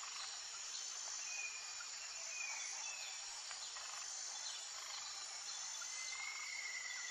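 Faint outdoor ambience: a steady high insect-like hiss, with a few faint, short high chirps scattered through it.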